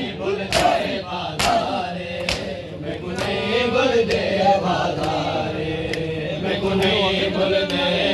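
A crowd of men chanting a noha refrain together in long held lines, with rhythmic sharp slaps of matam, hands striking chests, about once a second, loudest in the first few seconds.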